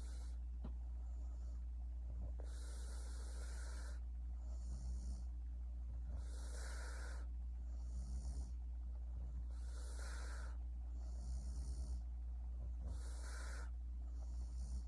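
A sleeping woman snoring softly with slow, regular breaths about every three and a half seconds. Each breath is a hiss followed by a short, fluttering low snore, over a steady low hum.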